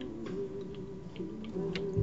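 A song playing in the background, with light, irregular clicks over it.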